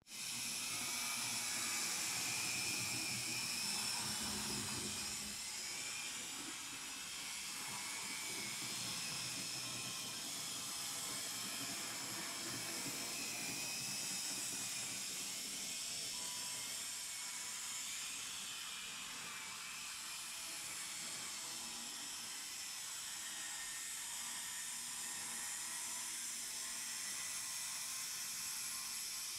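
Z-scale model train running along the layout track: the tiny locomotive motor gives a steady high-pitched whine with a hiss, its pitch wavering slightly.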